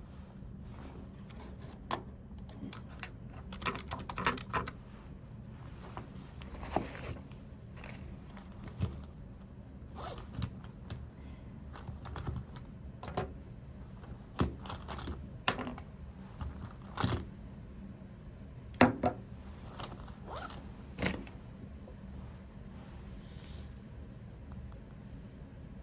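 Scattered light clicks, taps and small scrapes of objects being handled, irregular and a few seconds apart, over a steady low hum.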